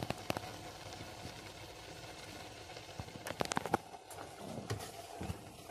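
Kitchen utensils and cookware on a stovetop: a few sharp clicks and knocks of a spatula and pots, twice in a quick cluster, over a faint steady hiss that fades about four seconds in.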